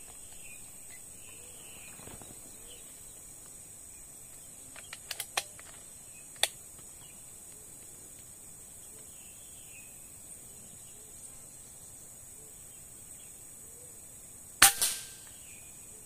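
A 4.5 mm PCP air rifle (Ghost Warrior 500cc) fires once near the end: a sharp crack followed at once by a second, smaller report. A few fainter sharp clicks come about five and six seconds in.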